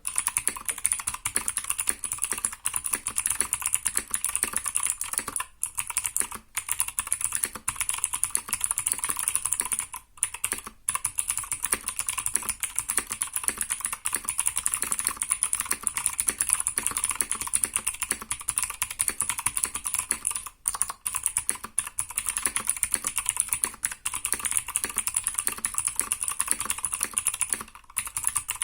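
Continuous typing on the letter keys of a Motospeed CK61 mechanical keyboard whose switches and stabilisers are lubricated with silicone grease and which has foam under the PCB: a dense run of keystroke clicks, broken by a few brief pauses.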